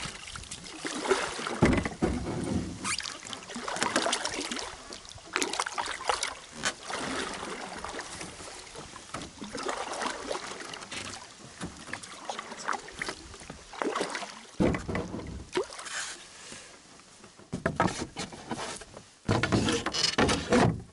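Canoe paddle strokes in lake water: irregular splashing and dripping as the paddle dips and pulls, with some low rumbling near the end.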